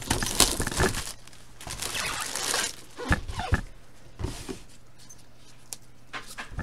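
Clear plastic shrink-wrap crinkling and tearing as it is pulled off a cardboard box, in a couple of noisy bursts. A few light knocks and handling sounds follow.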